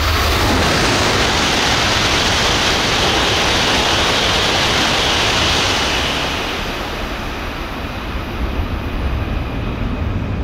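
Shinkansen trains (E6 and E5 series) passing through a station at about 308 km/h: a loud rush of air and wheel noise that eases about six seconds in and builds again near the end.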